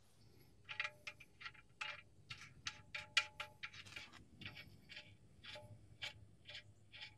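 Ratchet wrench clicking as it turns the oil drain plug back into the oil pan, a run of sharp clicks about two or three a second.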